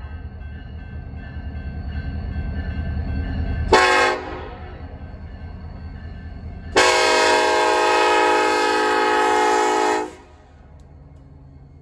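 BNSF SD70ACE diesel locomotive's Nathan K5HL five-chime air horn sounding the end of a grade-crossing signal: a short blast about four seconds in, then a loud long blast of about three seconds as the locomotive reaches the crossing. Beneath it, the locomotive's low rumble grows louder as it approaches, and it is quieter once the horn stops.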